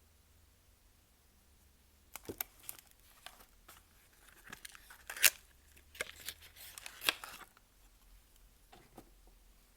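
Soap packaging being unwrapped by hand: crackling, tearing and crinkling of the wrapper in a burst of a few seconds, with two sharper snaps, the loudest about five seconds in.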